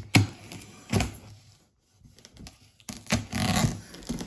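Knife and hands at a cardboard box as it is cut open: a few sharp knocks and thunks, then a scratching, tearing rasp of the blade through the cardboard about three seconds in.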